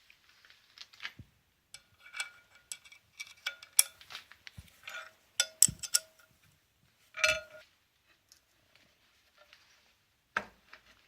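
Metal parts and tools clinking and knocking together in irregular hits, some leaving a short ringing tone. There is no machine running.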